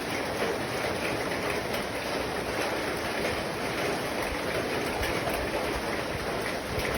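Steady rain falling on a house roof: an even, unbroken wash of noise that holds level throughout.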